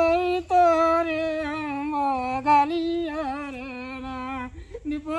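A single voice humming in long held notes that waver slightly in pitch, breaking off briefly about half a second in and dying away near the end.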